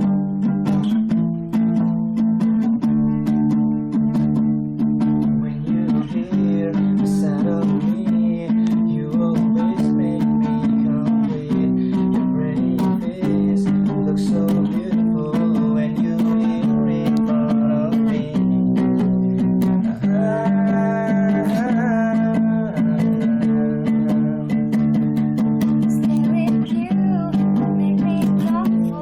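Acoustic guitar playing a steady chord progression, strummed and picked, with the chords ringing on.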